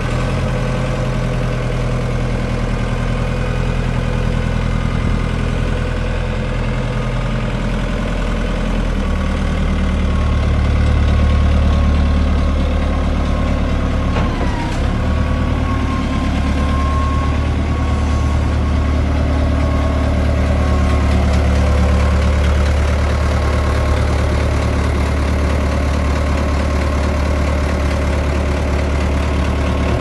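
Fiat-Allis backhoe loader's diesel engine idling steadily. Its low hum deepens and grows a little louder about nine seconds in.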